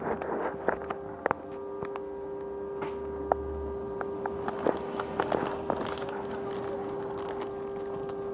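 A steady, unchanging whine holding one pitch from a Stagecoach London bus in service, the odd noise the recording was made to capture. Scattered clicks and knocks sound over it, densest in the first second and around five seconds in.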